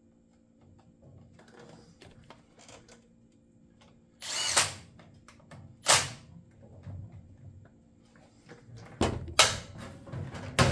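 Cordless drill running in two short bursts, driving fasteners into a chainsaw during reassembly, about four and six seconds in. Near the end, louder knocks and thuds as the saw is handled and shifted on a metal bench.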